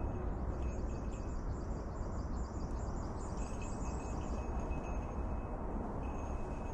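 A bird gives a quick series of high chirps, about four a second, for roughly three seconds, over a steady low rumble.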